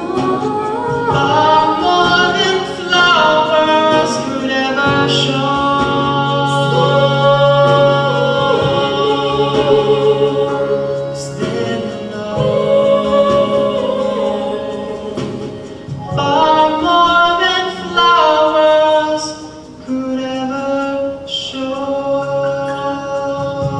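A man and a woman singing a slow love song duet into handheld microphones, with musical accompaniment holding long low notes beneath the voices.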